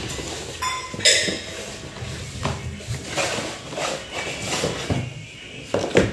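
Hard objects being handled: an irregular series of knocks and clinks with rustling in between, the sharpest knock about a second in and another near the end.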